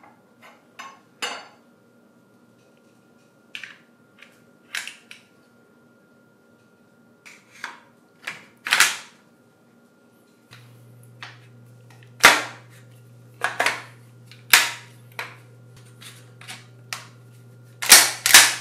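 Steel pump-shotgun parts being handled and fitted together on a stone countertop: scattered metallic clicks and clacks. Near the end comes a quick run of loud, sharp clacks as the reassembled pump action is worked. A steady low hum runs under the second half.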